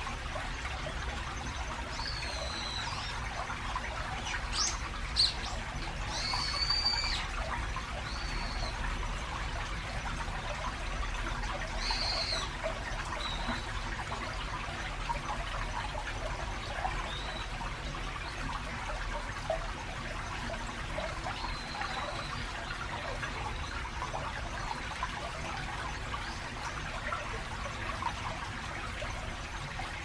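Shallow stream trickling steadily over a stony bed, with a low steady rumble of road traffic carried along the channel. Birds call with short whistled notes a few times, mostly in the first half.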